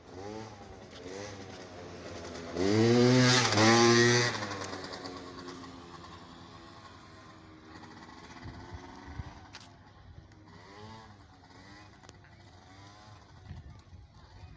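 A motor vehicle's engine passing, its note rising and falling. It is loudest about three seconds in and then fades away, and a fainter engine note comes again near the end.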